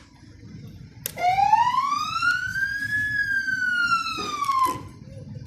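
Code 3 electronic police siren sounding one wail sweep through its speaker. The tone switches on with a click about a second in, rises for about two seconds, falls for about two more, and cuts off with a click near the end.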